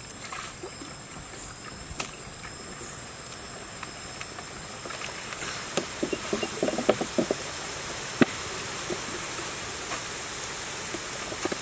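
A large whole salmon being handled on palm fronds and a wooden cutting board: scattered soft knocks and rustles, with a quick cluster about six to seven seconds in and a sharper single knock about eight seconds in, over a steady high hiss.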